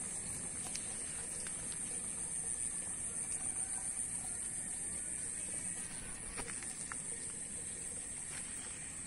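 Outdoor ambience dominated by a steady high-pitched hiss, with a low background rumble and a few faint scattered clicks.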